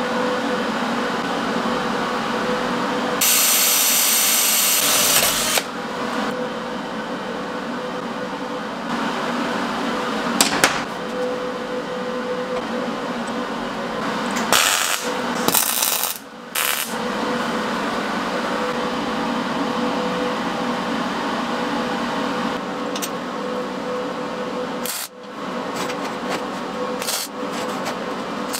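Metalworking tool sounds over a steady machine hum: about two seconds of loud hissing about three seconds in, more short hissing bursts around the middle, and a run of sharp metallic clicks and knocks near the end.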